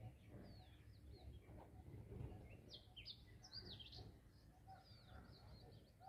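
Faint chirping of small songbirds: scattered short calls that slide up and down in pitch, busiest around the middle, over a low background hum.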